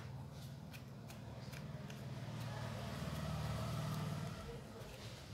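A low rumble that swells about three seconds in and then fades, with faint small clicks and rustles of a grosgrain ribbon bow being handled and pressed.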